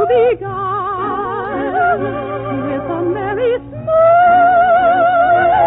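Operatic singing with a wide vibrato over orchestral accompaniment, heard through the narrow, muffled sound of an old radio recording. There are two short breaks between phrases, then a long held note slides upward near the end.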